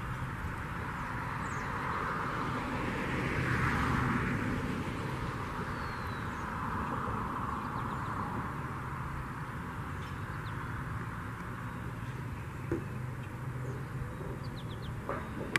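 Outdoor ambience with a distant engine, like passing traffic or a plane, swelling to a peak about four seconds in and slowly fading over a steady low rumble.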